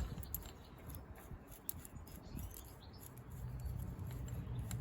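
Scattered light metallic clicks and taps as a brake caliper carrier bolt and bracket are handled and fitted, over a faint low steady hum.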